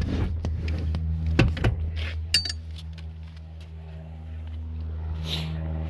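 Car seat being slid forward on its metal track rails: several sharp metallic clicks and clunks in the first two seconds, one with a short ringing clink, then quieter. A steady low hum runs underneath.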